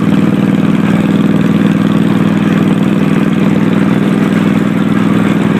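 Small engine of an amusement-park miniature train running steadily at an even pace.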